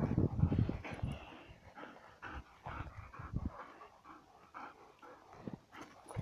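Mastiff-type dog panting close by, loudest about the first second, then irregular and quieter.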